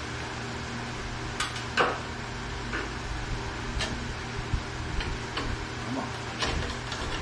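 Box fan running with a steady hum, while a bench grinder is handled by hand, giving about eight scattered light clicks and taps of metal.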